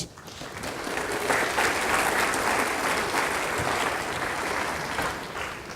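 Audience applauding a correct answer, building up quickly in the first second or so and then tailing off near the end.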